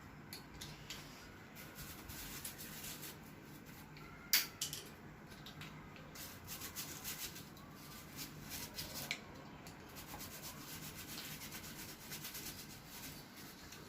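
A brush scrubbing the inside of an evaporative air cooler's motor housing in many short scratchy strokes, clearing out hair, grit and dust. A sharp tap comes about four seconds in.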